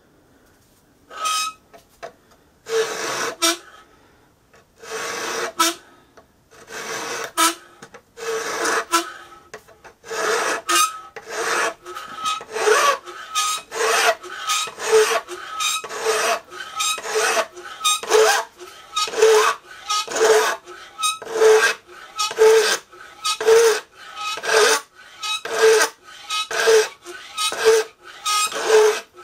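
Hand file rasping across a steel knife blank in a file-guide jig, cutting the blade's edge bevel. The strokes are uneven at first, then settle into a steady rhythm of about one stroke a second, each with a faint metallic ring.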